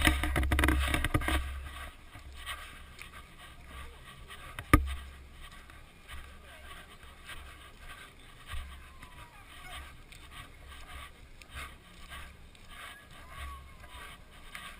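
Wind buffeting the camera microphone over faint crowd chatter, loudest in the first second and a half. A single sharp knock comes about five seconds in.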